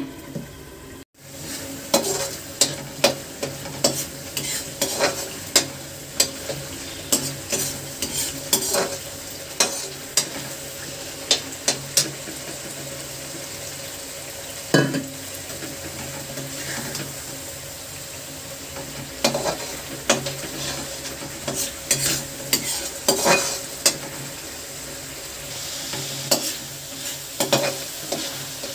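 A perforated metal spoon scraping and clinking against a steel kadai while stirring spice paste frying in oil, with a steady sizzle underneath. The clinks come irregularly in two busy stretches, with a quieter spell of sizzling in the middle.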